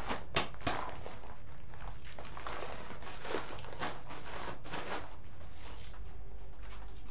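Plastic-packed rice sacks crinkling and rustling as they are handled and stacked, with a couple of short knocks near the start.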